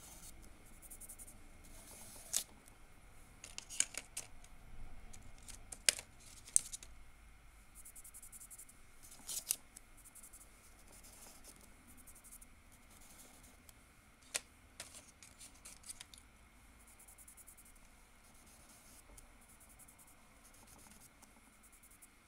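Chalk pastel being rubbed onto a fingertip and swirled onto paper, heard as short, faint, scratchy rubbing sounds several times over the first sixteen seconds, then only faint room tone.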